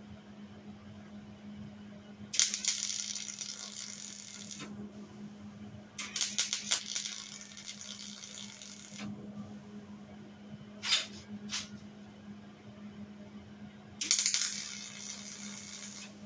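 Electric arc welder crackling on steel in runs of about two to three seconds, with two short tack-welds near the middle. A steady low hum runs underneath.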